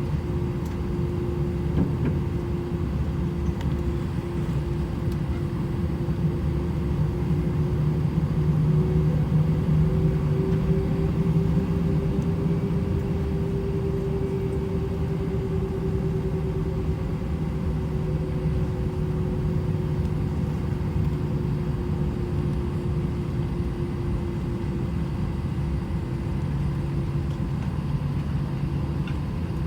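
Cabin noise aboard an Airbus A319 with its engines running: a steady low rumble under a hum that rises a little in pitch about ten seconds in and settles back down later.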